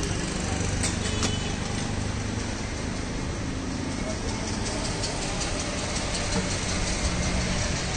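Street-market ambience: a steady rumble of traffic with indistinct voices in the background, and a few sharp clicks about a second in.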